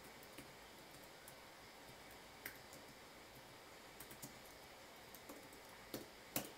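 Faint typing on a computer keyboard: scattered key clicks at an uneven pace, a little busier and louder in the second half.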